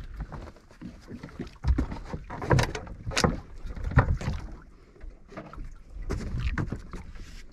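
Small wooden boat drifting, with water moving against the hull and a few sharp knocks on the boat about two, two and a half, three and four seconds in.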